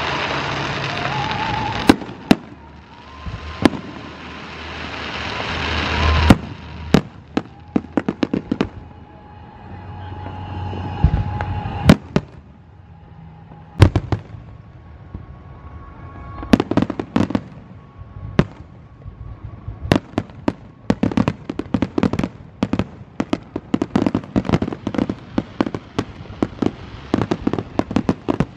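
Aerial fireworks display: sharp bangs of shells bursting, with a hiss that builds over the first few seconds. In the second half comes a dense run of rapid crackling pops.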